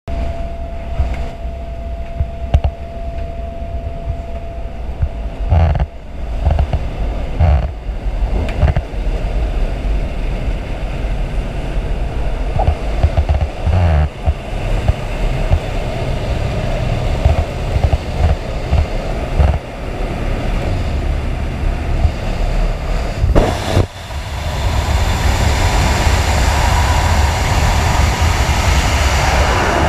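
Aircraft engine and propeller drone heard inside the jump plane's cabin, with several sharp knocks and thumps of jumpers moving about. About three quarters of the way through it gives way to a steady, louder rush of freefall wind on the helmet camera's microphone.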